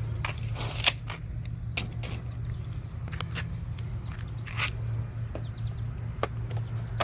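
Scattered light clicks and rattles of handling small parts, such as the robot mower's key and plastic housing, over a steady low hum.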